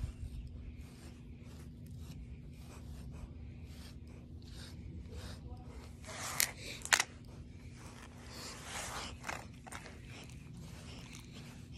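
Grooming comb raking through a dog's thick double coat in quick repeated strokes, a soft rasp on each pass, with two sharp clicks about six and seven seconds in.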